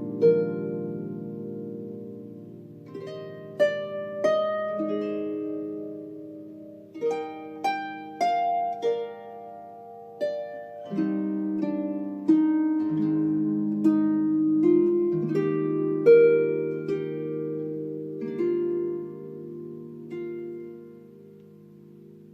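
Dusty Strings harp played solo: plucked melody notes over ringing low chords, each note sounding clearly and decaying slowly, with the last notes left to ring away near the end. The harp is a little out of tune.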